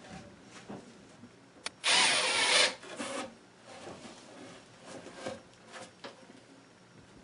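A power drill runs in one short burst into wood, between light knocks and the handling of plywood pieces.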